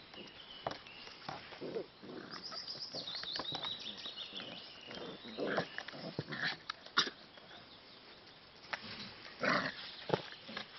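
Nine-week-old smooth fox terrier puppies making short, irregular noises in bursts as they wrestle, with a run of high, wavering squeaks about two to four seconds in.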